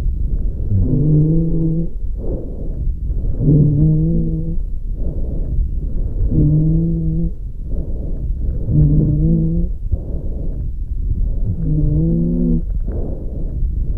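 An animal's breathing, recorded up close: five slow breaths, one about every two and a half seconds, each carrying a low, musical wheeze-like tone over a steady low rumble, with softer airy sounds between them.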